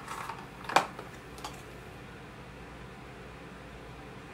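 A few light clicks and rustles from handling a glasses case and sunglasses, the sharpest click about three-quarters of a second in, then steady faint room hiss.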